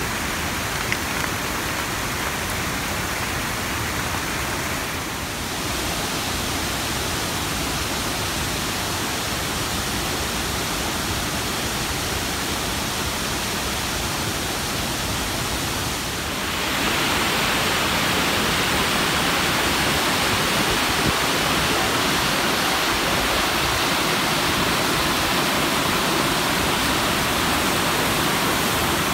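Steady rush of water from the Una River's rapids and waterfalls, a dense even hiss with no pitch. There is a slight dip about five seconds in. About sixteen seconds in it turns louder and brighter.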